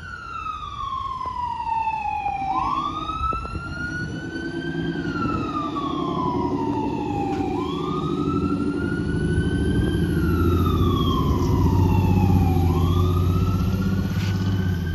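Fire truck siren on a slow wail, its pitch rising and falling about every five seconds, over the truck's engine running low underneath, which sets in a couple of seconds in and grows louder toward the end.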